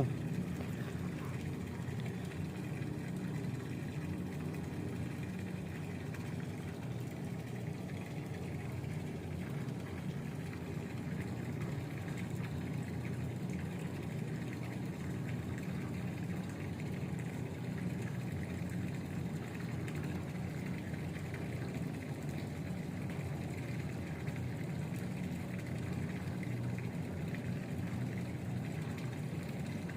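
Steady rush of flowing river water with no distinct events.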